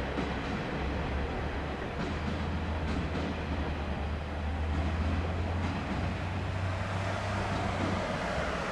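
Diesel railcar train of KiHa 47-series cars pulling away along the track, its diesel engines running with a steady low drone.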